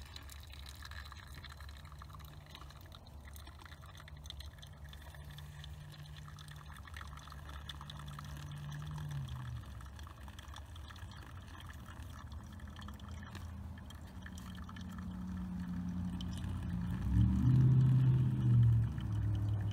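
Hot water poured in a thin stream from a stainless steel pot onto coffee grounds in a paper filter, trickling through into a glass pour-over carafe. A louder low rumble swells near the end.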